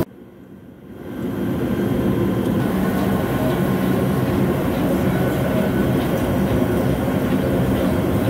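Steady running noise of a CNC vertical turning lathe turning a large steel separator drum, the tool cutting the drum's top face. The sound is faint for about the first second, then rises to a constant level.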